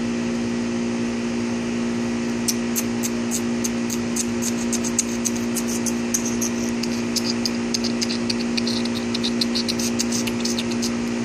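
A steady mechanical hum made of a few even tones, the kind a running outdoor machine such as an air-conditioning unit gives. From about two seconds in, many quick high chirps or ticks come over it in irregular runs.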